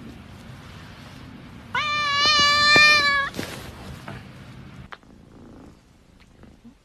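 A domestic cat giving one long meow, about a second and a half, beginning about two seconds in. The meow rises at the start and then holds a steady pitch.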